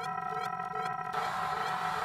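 A dense, unbroken jumble of many sound effects playing over one another at once. A buzzing tone with several evenly spaced overtones sounds through about the first second, then stops.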